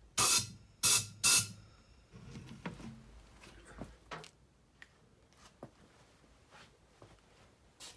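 Three short blasts of compressed air hissing from an air nozzle, back-flushing through the fuel filter inside the snow blower's gas tank. Faint clicks and handling noises follow.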